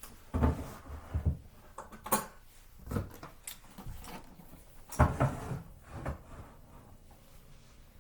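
Gear being handled and set down: a series of irregular knocks and clunks, the loudest about five seconds in.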